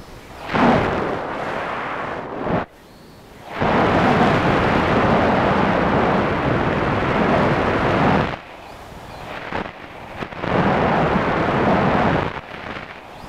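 Wind buffeting the microphone of a camera mounted on an RC plane in flight: a rushing, rumbling noise that rises and falls in several long surges, dropping away sharply for about a second near the three-second mark.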